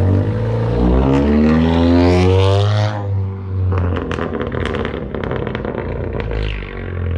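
Exhaust of a 2019 Honda Accord Sport's turbocharged 1.5-litre four-cylinder, running with a catless downpipe and the resonator and muffler deleted: the engine pulls with a rising pitch for about three seconds, then on lift-off the exhaust crackles and pops in a rapid string of sharp cracks.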